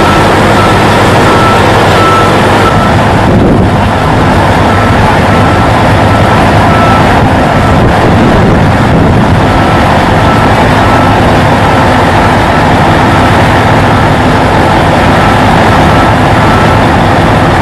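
Heavy diesel truck engine running steadily under load as the oversize rig moves slowly, with a faint high beep repeating over it. The sound changes briefly about three seconds in.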